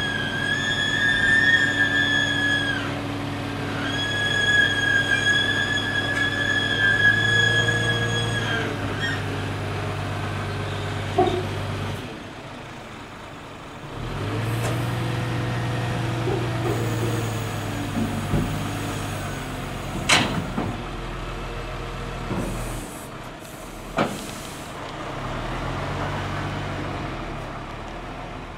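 Scania R500 hook-lift truck working a waste-compactor container: the diesel engine revs up and settles back several times as the hook-lift runs, with a high steady squeal in two stretches during the first eight seconds. Three sharp air-brake clunks and a short air hiss follow later.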